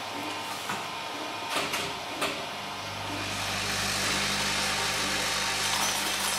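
A flour-bagging doser with a stainless hopper and feeder trough starts up about three seconds in and runs with a steady hum as it fills a paper bag. A few light knocks come before it starts.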